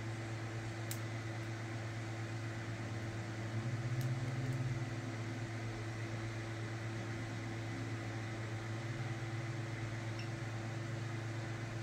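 Steady low electrical hum, swelling slightly about four seconds in, with a couple of faint clicks.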